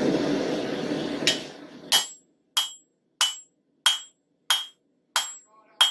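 Hammer blows on a hot railroad spike over an anvil: evenly spaced ringing strikes, about three every two seconds, starting about a second in. A loud rushing noise fills the first second and a half.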